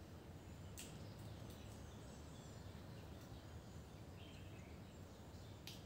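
Faint background noise with a low rumble, a few faint high chirps, and two sharp clicks, about a second in and near the end.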